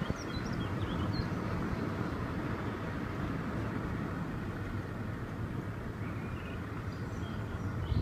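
Steady road and engine rumble of a moving car, heard from inside the car. A few faint bird chirps come through at the start and near the end, and there is a brief knock at the very end.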